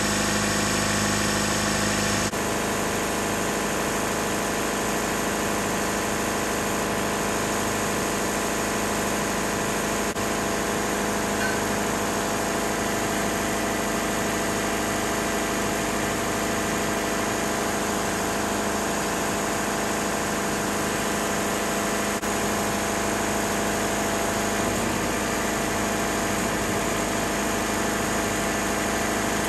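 Engine of a Wood-Mizer LT70 sawmill running steadily while the mill's hydraulics are worked, its tone shifting slightly about two seconds in.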